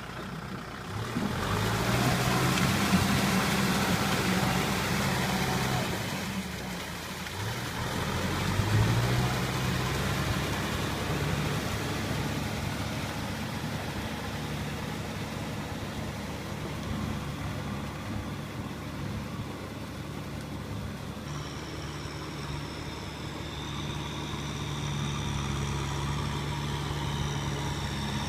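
Kubota M6040 SU tractor's diesel engine working, revving up about a second in, easing off near six seconds, revving again around eight seconds, then running steadily.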